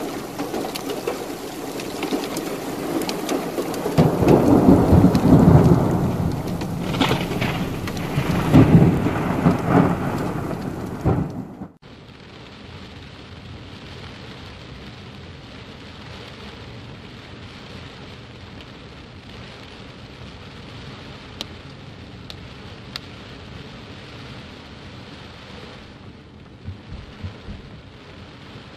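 Heavy rain beating on a moving car's roof and windshield, heard from inside the car, with two loud rumbling surges in the first dozen seconds. After a sudden cut about twelve seconds in, the rain goes on as a quieter, steady patter with a few small taps.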